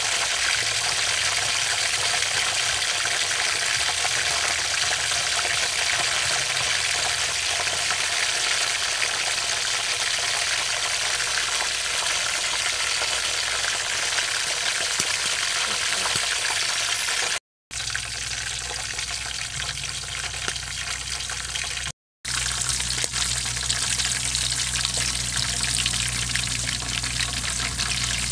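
Giant spiders deep-frying in hot oil in a metal wok, a steady sizzle, with metal tongs stirring them through the oil. The sound cuts out for a moment twice in the second half.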